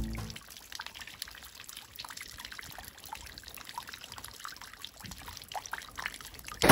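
Small snowmelt rivulet trickling over leaves and ice, a light, steady run of little bubbling plinks.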